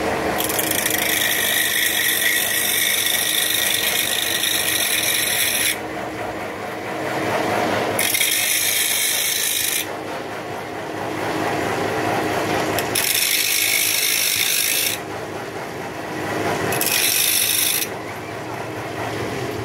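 A power tool spins a small abrasive disc on a mandrel against the deck face of an engine cylinder head, grinding the surface clean. There are four spells of harsh, high-pitched grinding while the disc bites the metal, the first and longest lasting about five seconds. Between them the tool keeps running more quietly.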